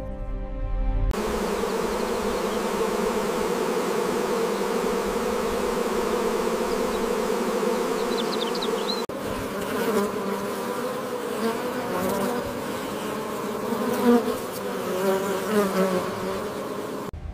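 Honeybees buzzing as a steady swarm around their hives. From about nine seconds in the buzz comes closer, with single bees flying past and the pitch wavering.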